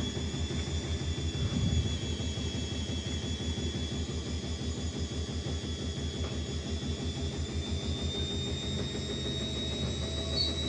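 Indesit washing machine drum in its final spin, the motor running with a high whine that rises slowly over a low rumble with a fast even pulse. The load is unbalanced and the drum bearings are worn.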